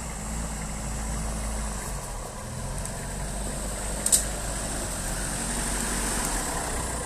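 Off-road 4x4 vehicle engine running steadily at low revs, with a single sharp click or knock about four seconds in.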